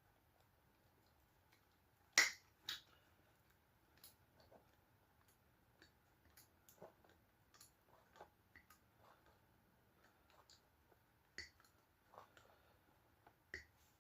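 Scattered light clicks and taps of hand tool work, with two sharper clicks about two seconds in and two more near the end: a hydraulic crimping tool being handled and worked on a cable lug.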